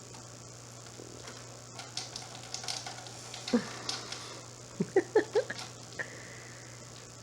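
A cat gives a few short meows and chirps, one near the middle and a quick run of them about five seconds in, after light scattered clicks and taps. A steady low hum runs underneath.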